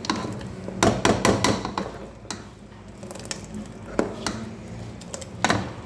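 A metal cooking spoon knocking and clinking against a pot while soup is stirred, a scattered run of sharp knocks over a low steady hum.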